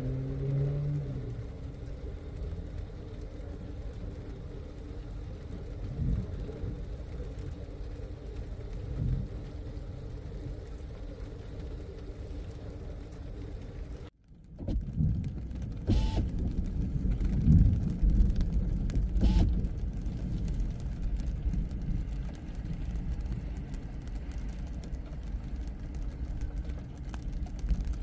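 A steady low hum inside a parked car. After a sudden cut, wind gusts buffet the microphone with low rumbling, loudest in bursts about two, five and fourteen seconds after the cut.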